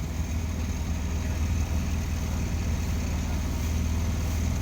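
A motorcycle engine fitted in a small car, running steadily at an even speed with a low, constant hum and no revving.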